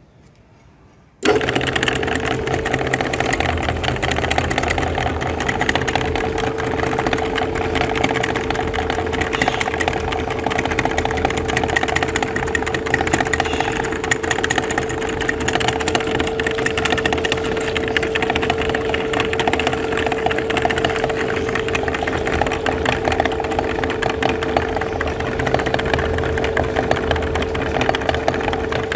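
Motor-driven meat grinder switching on about a second in, then running steadily with a constant hum as jelly is fed through and ground.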